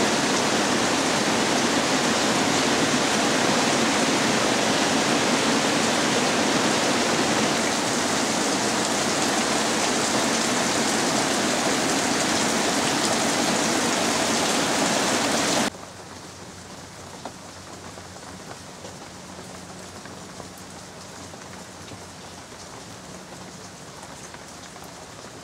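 Heavy rain pouring down on tree and shrub foliage, a loud steady hiss. About two-thirds of the way through it cuts abruptly to much quieter rain, with scattered drops tapping on leaves.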